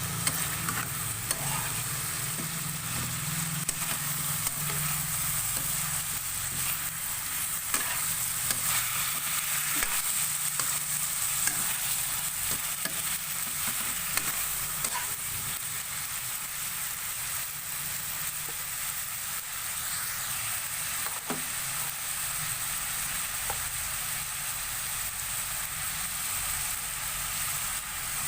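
Chicken pieces sizzling as they fry in a pan, with a steady hiss and the occasional click and scrape of a utensil stirring them.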